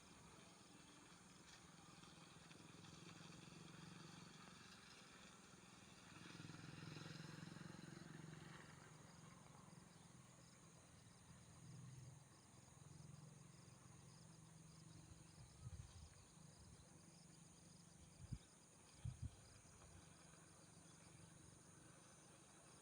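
Faint outdoor ambience with quiet insect chirring, and a few short low bumps on the microphone near the end.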